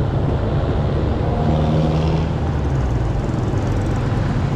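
Steady low rumble of a motor scooter riding in city traffic, its engine running under road noise, with a short stronger hum about one and a half seconds in.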